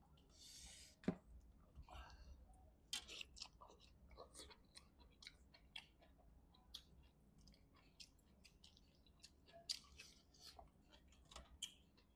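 Faint eating sounds: scattered wet clicks, smacks and light crunches of chewing and of fingers pulling apart pieces of chicken in curry.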